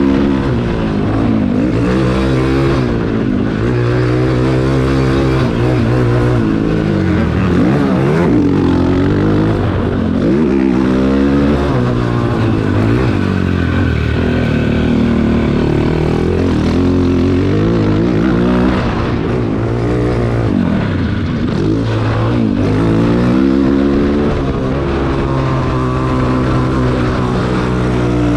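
Cannondale quad's single-cylinder four-stroke engine under way, revving up and falling back over and over as the throttle is worked through the gears.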